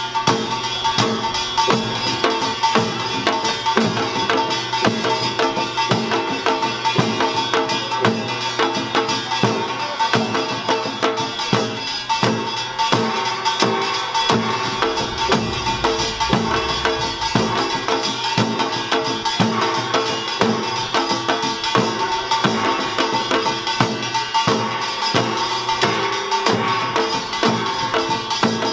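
Yeongnam samulnori played seated: janggu hourglass drums, buk barrel drums, a kkwaenggwari small gong and a jing gong beating a dense, continuous rhythm of rapid strokes, with a steady ringing gong tone over the drums.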